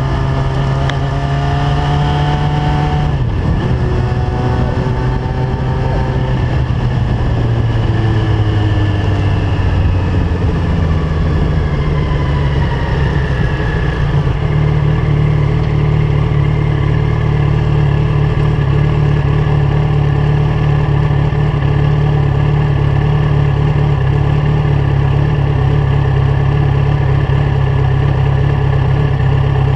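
Yamaha FZ1's inline-four engine through a LeoVince GP-Style exhaust. Its pitch rises, with a short break about three seconds in, then falls from about six seconds in as the bike slows, and it runs at a steady idle for the second half as the bike comes to a stop.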